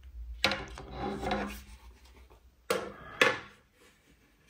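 Removed case parts being handled on a tabletop: a scraping rub of about a second, then two sharp knocks with more scraping near three seconds in.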